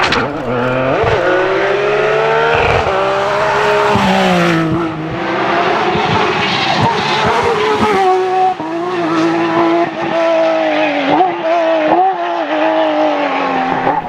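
Porsche 911 GT3 rally cars' flat-six engines revving hard through corners on a tarmac stage, several passes in turn. The pitch climbs and drops with each gear change and lift off the throttle.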